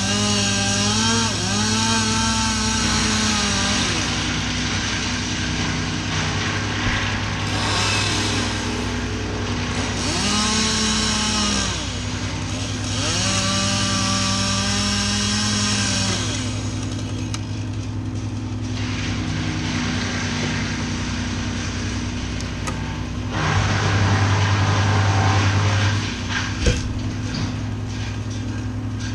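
Stihl chainsaw revving up into cuts through conifer wood several times, dropping back between cuts, over a steady low drone.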